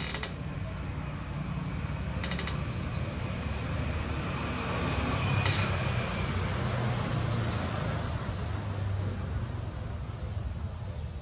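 Electric potter's wheel motor running with a low, steady rumble and a faint hiss as the wheel turns. A brief high chirp comes about two seconds in and a sharp click about halfway through.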